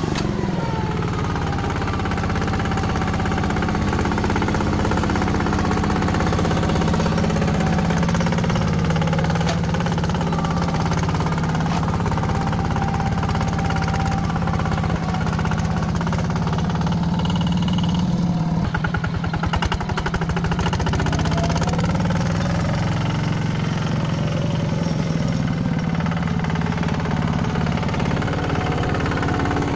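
Heavy machine's diesel engine running steadily, with a wavering whine above it and a stretch of rapid clattering around eighteen to twenty seconds in.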